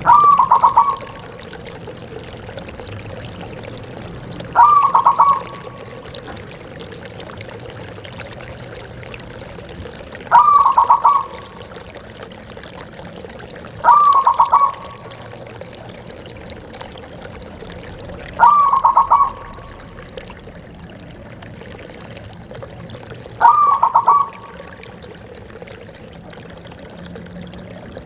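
Zebra dove (perkutut) cooing: six short, pulsed coos, each about a second long and a few seconds apart, over a steady background hiss.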